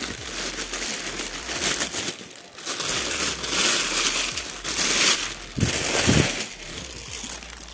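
Thin clear plastic bag crinkling and rustling in uneven bursts as hands work an amplifier out of it.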